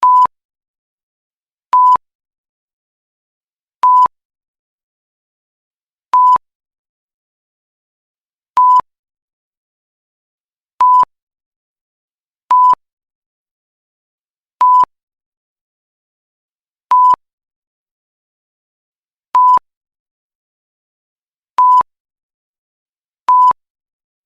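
Censor bleep sound effect: a short, steady pure-tone beep, repeated twelve times about every two seconds with dead silence between, each beep starting and stopping with a faint click.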